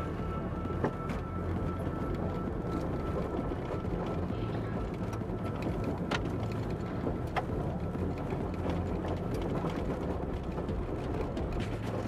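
Inside a car driving on a gravel road: steady tyre and road noise with rattling, and a few sharp clicks of stones striking the car, with background music.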